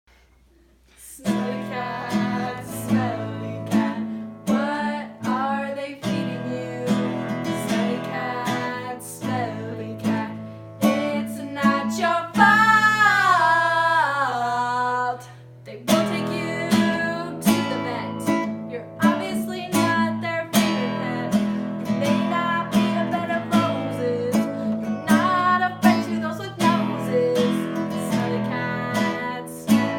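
Acoustic guitar strummed steadily, starting about a second in. Between about 12 and 15 s a long wavering voice-like note slides downward over the chords.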